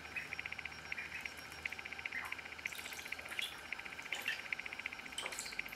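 Indian Runner ducklings calling: runs of rapid soft trilling with sharp peeps here and there that drop quickly in pitch.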